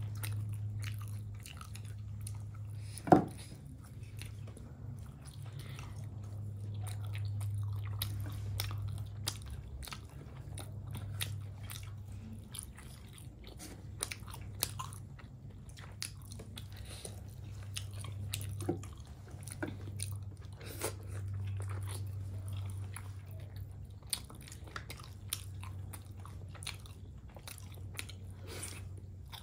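Close-up chewing and biting of steamed chicken momos, with many small mouth clicks and smacks over a steady low hum. A sharp knock about three seconds in is the loudest sound.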